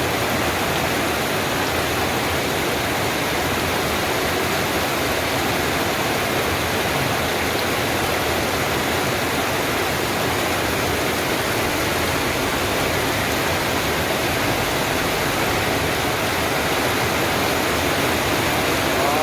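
Heavy rain pouring down steadily, a dense even hiss with no let-up, from a tropical storm.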